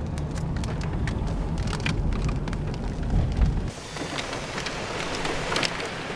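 Wind-driven rain ticking and pattering on a car, over a low rumble. About two-thirds of the way through, the rumble cuts off suddenly, leaving a steady hiss of wind and rain.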